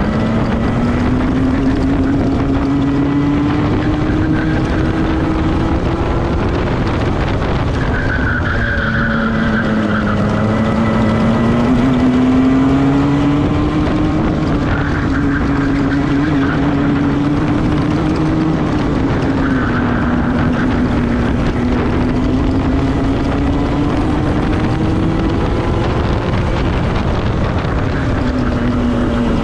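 Club 100 racing kart's two-stroke engine, recorded on board, revving up and down several times as the kart accelerates and brakes around the lap.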